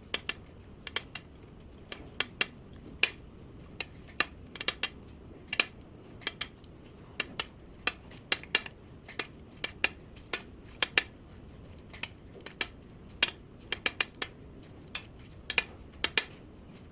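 Irregular sharp clicks and taps of a tool, with a metallic clink, against a hard surface as colored clay is mixed, about two or three a second.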